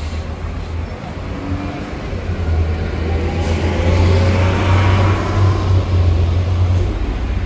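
Angels Flight funicular car climbing the incline on its rails: a low rumble that swells about a third of the way in and eases off near the end.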